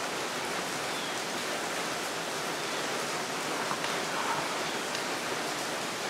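Steady hiss of rain, with a couple of faint clicks of metal engine parts being handled near the middle.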